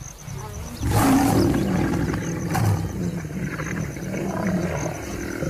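Male lion growling and snarling: a rough, low growl that starts about a second in and carries on steadily.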